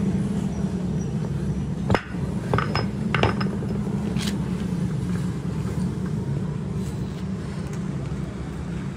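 Broken truck drive-shaft parts, the sheared splined stub and its steel yoke, knocked against each other and the concrete floor: about four sharp metal clinks from about two to four and a half seconds in, the first the loudest. A steady low machine rumble runs under them.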